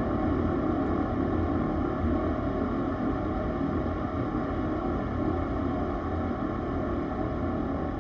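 Milwaukee M12 FUEL mini air compressor running steadily, a continuous motor-and-pump drone.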